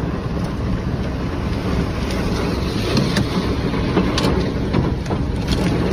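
Strong storm wind buffeting the microphone: a steady, loud rushing rumble heaviest in the low end, with a few sharp ticks in the second half.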